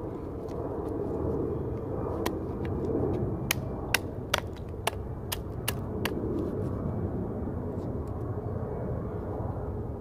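Knife blade cutting into a wooden stick, a quick run of about ten crisp clicks as cuts are taken, from about two seconds in to about six seconds in. A steady low rumble runs underneath.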